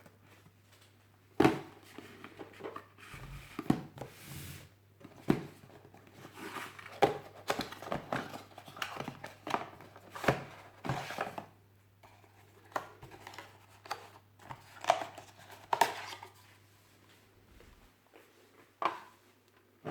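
Hands handling packaging and parts: an irregular string of sharp clicks and knocks with some rustling, over a low steady hum that stops near the end.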